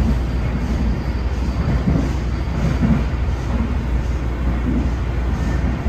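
MARTA rail car running at speed, heard from inside the car: a steady low rumble of wheels on track, with soft swells recurring under a second apart.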